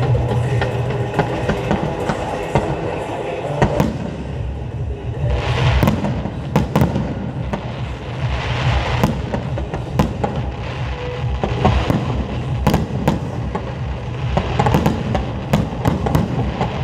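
Aerial fireworks going off: a rapid string of sharp bangs and cracks, with crackling patches about five and eight seconds in, over music playing underneath.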